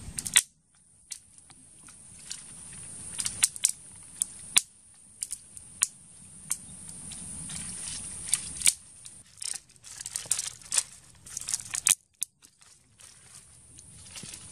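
Irregular sharp clicks, snaps and scraping from a wooden stick being worked by hand over a banana leaf, over a steady high hiss. The sound cuts out for a moment about half a second in and again around twelve seconds.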